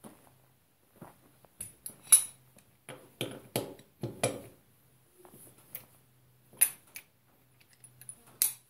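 Steel socket wrench and bar clinking and knocking against the wheel nuts of a Massey Ferguson 35 tractor's front wheel as they are loosened: a string of sharp metallic clinks, the loudest about two seconds in and again near the end.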